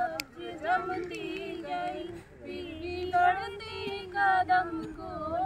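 A group of young women singing a Hindi song together without instruments, over a held steady low note.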